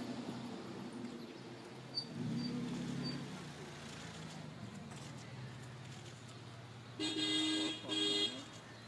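Vehicle engine running, then a vehicle horn sounding two short toots near the end.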